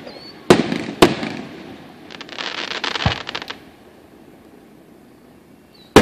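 Aerial firework shells bursting: two sharp bangs half a second apart, each trailing off in a long rolling echo. A crackling hiss lasts about a second with a dull thump in it, and a last loud bang comes at the very end.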